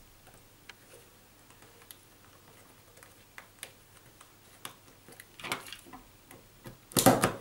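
Light plastic clicks and ticks as solid-core wires are pressed by hand into the IDC slots of a CAT5e faceplate socket. Near the end comes a louder quick cluster of snaps as a Krone IDC insertion tool punches a wire down and cuts off its end.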